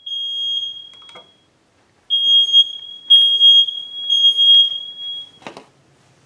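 Smoke alarm's piezo sounder beeping under test at a steady high pitch: one beep, a short pause, then three beeps about a second apart, showing the alarm works. A single click near the end.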